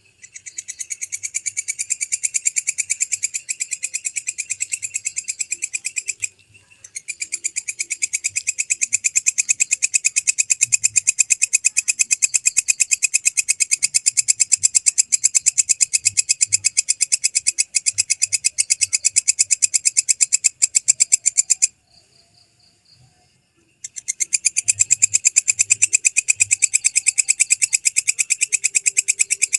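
Walang kecek (belalang kecek) katydid singing: a loud, rapid, even train of high-pitched clicking pulses in long bouts, swelling up at the start, with a short break near six seconds and a pause of about two seconds near the end before it starts again.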